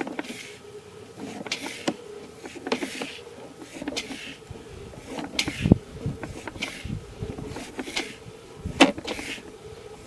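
Sewer inspection camera being pushed along the pipe: irregular clicks, knocks and short scrapes from the push cable and camera head, with a few louder knocks, over a faint steady hum.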